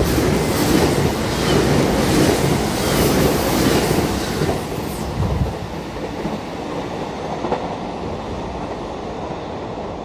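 Train passing through the station at speed, its wheels clacking over the rail joints. It is loudest for the first five seconds or so, then eases to a lower rumble.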